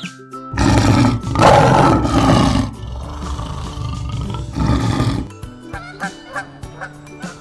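A large animal roaring: one long roar, then a shorter one about two seconds later, over background music.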